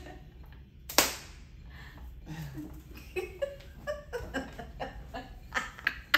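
A single sharp smack about a second in, then soft laughter and a run of sharp taps or clicks that grow more frequent near the end.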